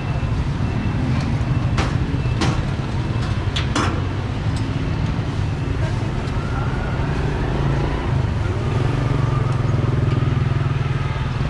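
Busy street traffic with engines running as a steady low rumble, voices in the background, and a few sharp clacks between about two and four seconds in.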